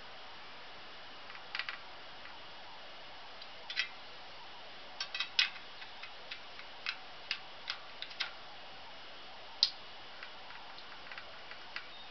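Spoke wrench on a bicycle wheel's spoke nipples: small, sharp metallic clicks at irregular intervals, about a dozen, as the nipples are turned to loosen spokes and true out a side-to-side wobble in the rim.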